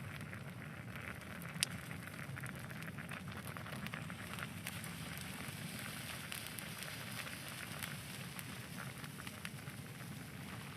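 Wood fire crackling, with irregular sharp pops and snaps over a steady rushing hiss.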